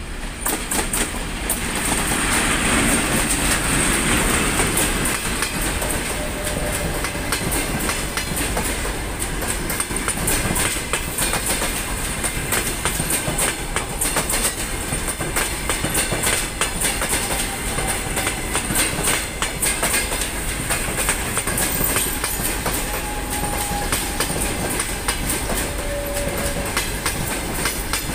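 TEP70 diesel locomotive passing close, followed by its passenger coaches rolling by. The wheels click over the rail joints in a fast, steady rhythm.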